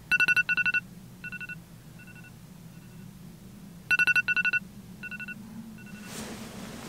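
Smartphone alarm going off in a dark room: a quick cluster of high electronic beeps followed by fainter repeats, sounding twice about four seconds apart, over a low steady room hum. A soft rustle near the end.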